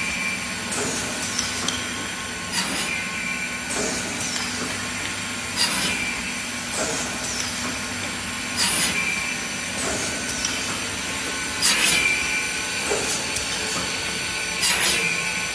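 Optimizing crosscut saw running with a steady machine hum. A short, loud burst about every three seconds marks each cut cycle, with lighter mechanical clacks of the feed in between.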